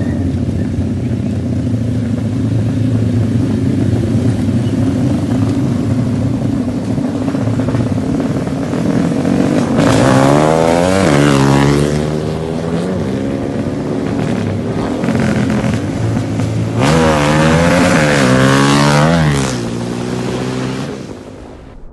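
Several modified motorcycles riding in a group, their engines running steadily. There are two loud spells of repeated throttle revving, one about ten seconds in and one a little before the end, with the pitch swinging up and down several times.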